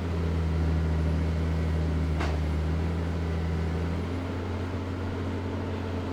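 A heavy machine's engine running steadily with a low, even drone. One part of its tone drops away about four seconds in.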